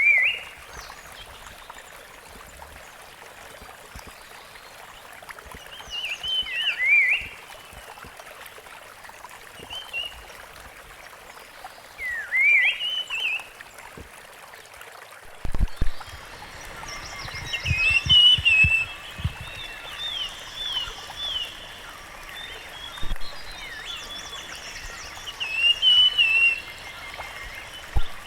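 Rusty-fronted barwings calling: short swooping, bouncing chirp phrases every few seconds, growing busier about halfway through with several birds calling over one another. A steady hiss runs underneath, and a few low knocks come around the midpoint.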